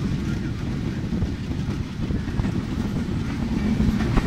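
Moving passenger train heard from aboard: a steady, dense rumble of the wheels running on the rails, with a few faint knocks.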